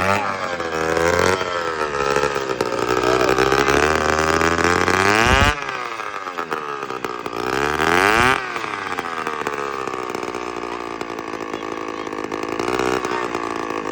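Straight-piped scooter engine with its muffler cut off, revved up and let fall back several times: the revs climb slowly, then drop off sharply. Really loud.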